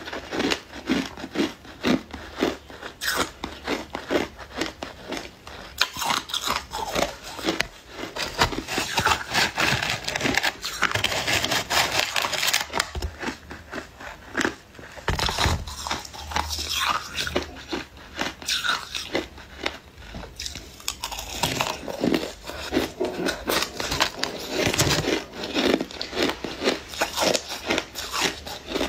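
Shaved and refrozen ice being bitten and chewed, a dense run of crisp crunches that keeps going without a break.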